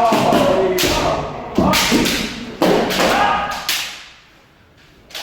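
Kendo sparring: about half a dozen sharp strikes of bamboo shinai on armour and stamping footwork, mixed with shouted kiai, going quieter near the end.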